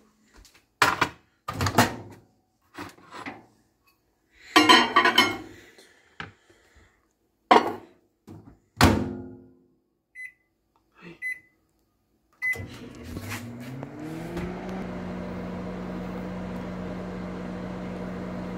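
Knocks and a clatter as a bowl goes into a Panasonic microwave and the door is shut, then short keypad beeps. About twelve seconds in, the microwave starts: its hum rises in pitch for about two seconds, then runs steadily while it heats.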